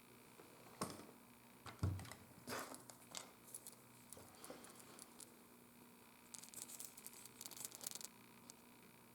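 Handwork on leather and tools at a workbench: two sharp knocks about a second apart, a string of lighter clicks, then a second or so of scratchy rustling near the end.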